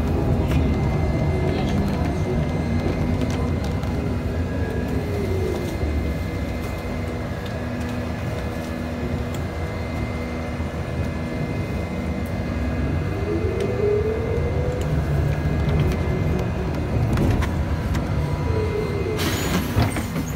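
Cabin sound of a BKM 321 trolleybus under way: a steady low rumble, with the electric traction motor's whine falling in pitch about five seconds in, rising around thirteen seconds as it pulls away, and falling again a few seconds later. A loud burst of noise about a second long comes near the end.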